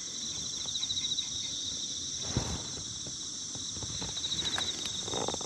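Insects chirring steadily in a high, pulsing drone, with a soft knock about two and a half seconds in.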